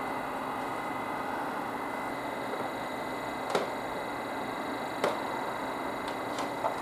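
Steady hum and hiss with a faint high whine, broken by a few short sharp clicks about halfway through and again near the end.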